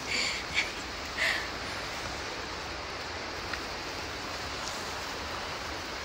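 Steady rushing noise, with a few brief rustles in the first second and a half.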